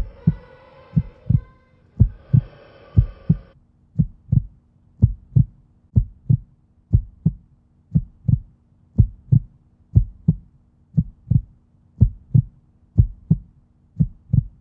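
Heartbeat sound effect: a steady double thump, lub-dub, about once a second. For the first three and a half seconds a wavering pitched sound lies over it; after that only a faint low hum remains under the beats.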